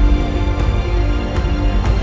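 Cinematic background music: a held low bed under sustained pitched notes, struck through with percussion hits about every half to three-quarters of a second.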